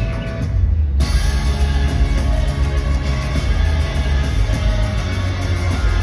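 Recorded yosakoi dance music played loudly over a stage sound system, with a heavy bass beat. The full arrangement comes in suddenly about a second in, after a thinner opening.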